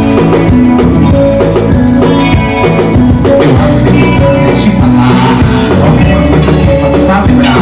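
A live band playing loud amplified music, with a drum kit and congas keeping a steady beat under electric guitar.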